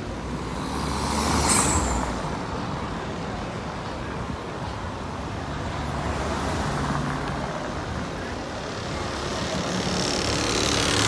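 Town-centre street traffic: vehicle engines running by. There is a brief sharp hiss about a second and a half in, and a car passes close near the end.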